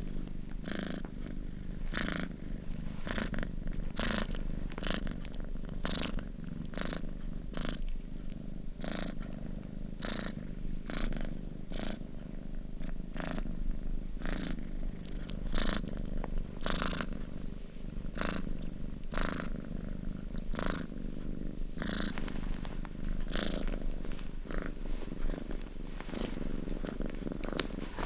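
Domestic cat purring close up: a continuous low rumble with a breathy rasp roughly once a second.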